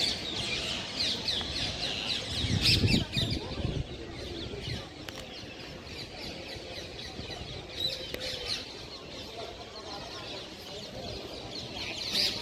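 Many small birds chirping at once in a dense, continuous chatter, with a louder low rumble about two to four seconds in.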